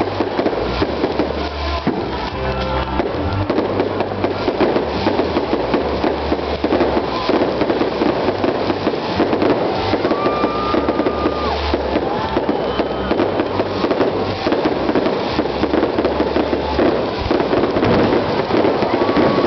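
Aerial fireworks bursting and crackling almost without pause, with music playing underneath.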